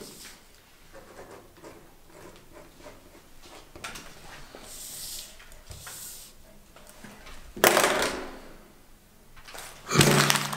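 A sheet of paper being handled on a tabletop, folded and then crumpled in the hand. There are soft rustles, then loud crinkling about three-quarters of the way in and again near the end.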